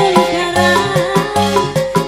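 Live dangdut band music over a PA system: a woman singing into a microphone over electronic keyboard and hand drums, with a steady, quick beat.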